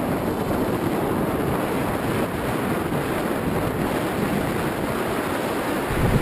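Strong wind and airflow rushing over the onboard GoPro's microphone on an Easy Star II RC plane in flight: a steady, loud rushing noise.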